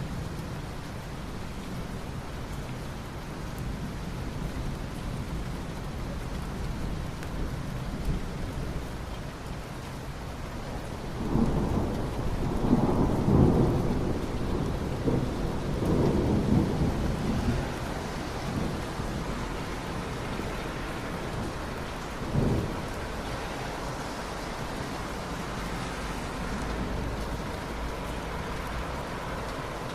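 Steady rain with thunder: a long roll of thunder swells up a little over a third of the way in and lasts several seconds, and a shorter, sharper thunderclap comes a few seconds later.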